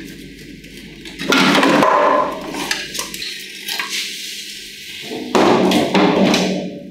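Heavy metal clunks and scraping as a 1962 Vespa's engine unit is pulled free of the body and set down on the floor. The noise comes in two loud spells, about a second in and again about five seconds in.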